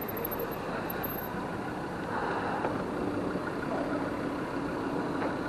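A motor vehicle's engine running steadily, with road noise.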